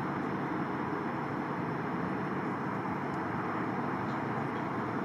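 Steady, even roar of the Antonov An-124 Ruslan's four turbofan engines heard from afar as the aircraft moves along the ground, with no change in pitch or level.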